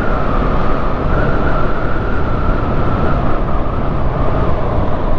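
BMW G310R's single-cylinder engine running steadily at a light cruise in sixth gear, just under 80 km/h, under a rush of wind noise with a steady high tone.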